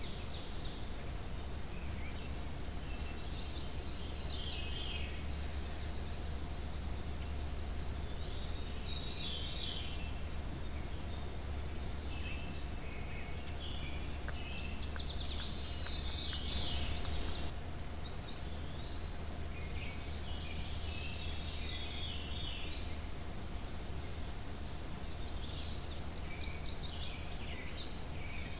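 Woodland birds singing, short repeated phrases coming every few seconds, heard through a trail camera's microphone over a steady low hum.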